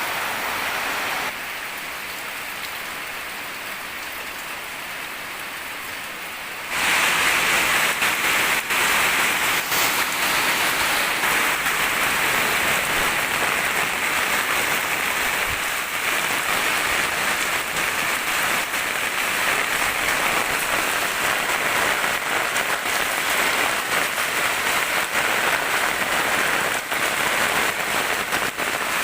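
Rain falling steadily, a dense hiss with many individual drop taps. It turns quieter about a second in, then becomes louder and brighter about seven seconds in and stays that way.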